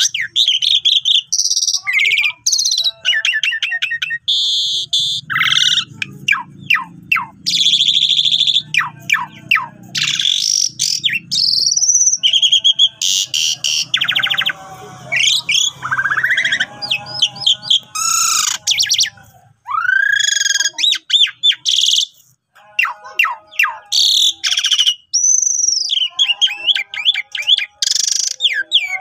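Javan pied starling (jalak suren) singing a long, varied song of loud whistles, rapid chattering and clicking runs, and rising and falling glides, broken by short pauses.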